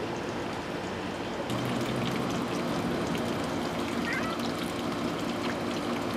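Water trickling and running steadily at a swimming pool, a little louder after about a second and a half, with a short faint chirp about four seconds in.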